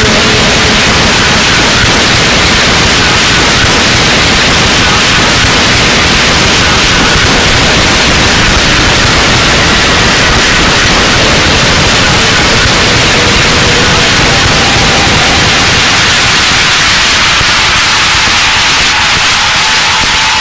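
Harsh, static-like wall of noise from a turntable noise improvisation, amplified turntables worked through a DJ mixer. It is loud and dense, with a few faint held tones showing through in the second half.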